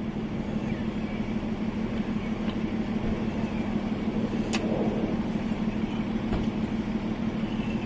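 Steady low hum and rumble of an idling vehicle engine, with one sharp click about four and a half seconds in.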